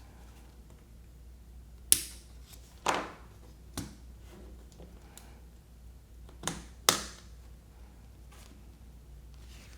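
About five sharp clicks and snaps from small tools working on the toothbrush's battery spring contact, two of them loud, near the start and just past the middle.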